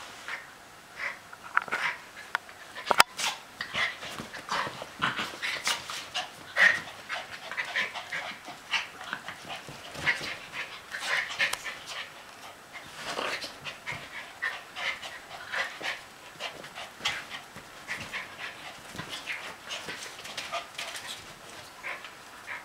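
Two Schipperke dogs play-wrestling: short, breathy dog noises and scuffling in quick, irregular bursts, with one sharp knock about three seconds in.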